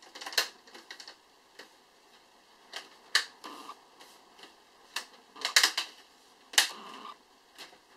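Plastic clips of a Lenovo X220 laptop's display bezel clicking as the bezel is pressed back onto the screen lid: a few sharp, irregular snaps, with a quick cluster a little past the middle.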